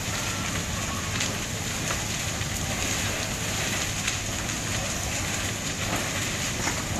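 Several garages burning: a steady crackling rush of fire with scattered pops.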